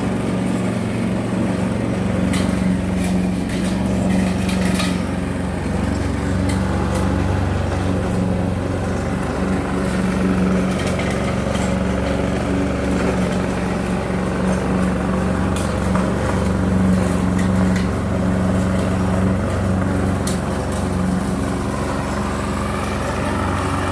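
Lawnmower engine running at a steady speed, with a few faint clicks scattered over it.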